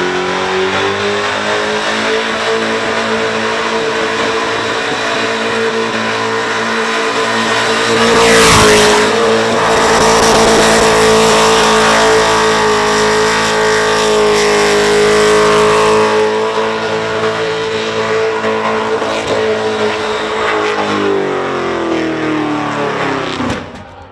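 Supercharged Holden Commodore burnout car's engine held at full noise through a burnout, with a loud burst about eight and a half seconds in. Near the end the revs fall away and the engine suddenly dies: it went from everything to nothing, with a small backfire through the injection system suspected, and a fire follows.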